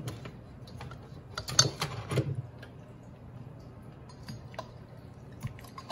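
Small hand tools and metal parts being handled and set down on a silicone work mat: scattered light clicks and taps, with a louder cluster of clatter about a second and a half in.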